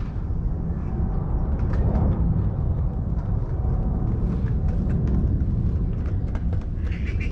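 Wind buffeting the camera's microphone: a steady, fluttering low rumble, with light rustles and ticks over it.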